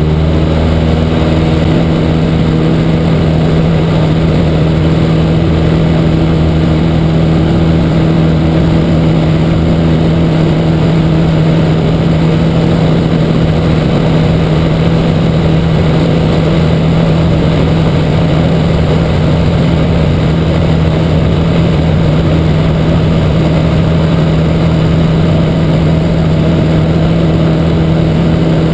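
Cessna 152's four-cylinder Lycoming O-235 engine and propeller running steadily at climb power, heard from inside the cabin.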